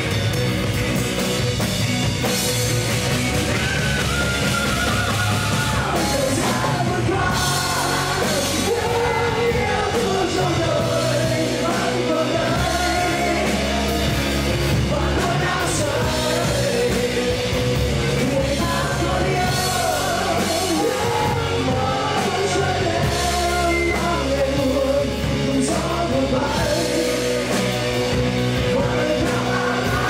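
Live rock band playing loud: electric guitars and a drum kit, with a male vocalist singing over them from a few seconds in.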